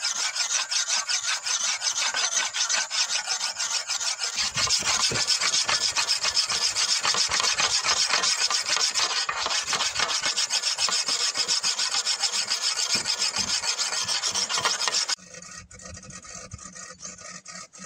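A whetstone rubbed rapidly back and forth over the broad steel blade of an oil-palm harvesting chisel (dodos), a gritty rasping of stone on steel as the edge is sharpened. It cuts off suddenly about fifteen seconds in, leaving a much quieter low hum.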